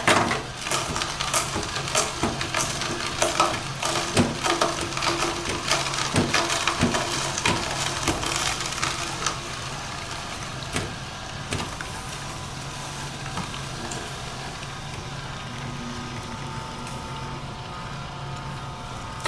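Omega 8004 horizontal single-auger juicer running at low speed, its auger crushing carrots fed down the chute with a dense run of crackling, crunching snaps. After about ten seconds the snaps thin out and mostly the steady hum of the motor remains.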